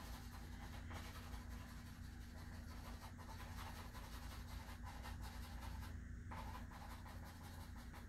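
Faint scratching of a pencil drawing on paper as shading is worked in, over a low steady hum.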